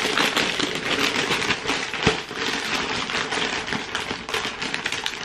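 Plastic packaging crinkling and rustling as a bag is unwrapped: a dense run of crackles and small snaps, with one sharper snap about two seconds in.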